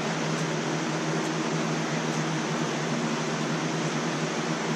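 Steady whoosh of a running fan with a low, even hum under it.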